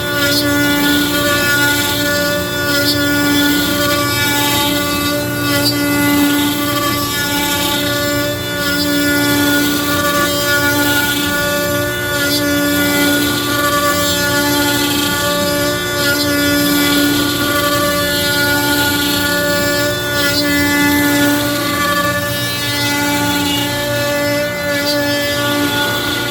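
Router motor on a Onefinity Foreman CNC cutting oak: a steady whine with overtones and a hiss of chips, swelling and easing every second or two as the bit loads in the wood.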